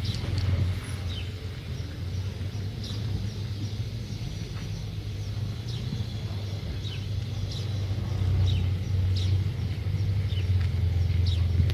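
Birds chirping, short high notes that slide downward, repeated irregularly over a steady low rumble.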